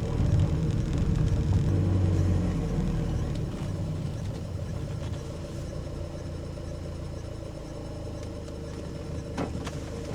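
Van engine running with road rumble as it drives slowly, louder for the first couple of seconds then easing off, with a brief click near the end.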